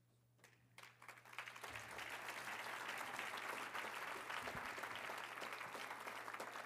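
Audience applauding: the clapping starts about half a second in, swells within a second, and thins out toward the end.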